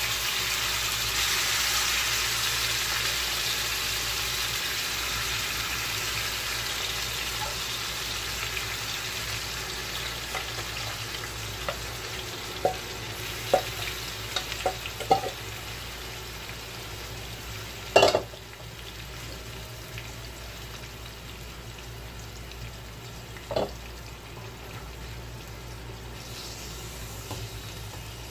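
Chopped mutton liver with onion and tomato sizzles in hot oil on a tawa griddle. The sizzle is loudest at first and slowly dies down as the food settles in the oil. A spatula clicks a few times against the metal, with a sharp knock about 18 seconds in and another a few seconds later.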